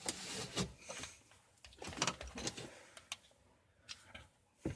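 Handling noises under a sink: a series of light knocks and clicks with some rustling, as things are moved and set in place.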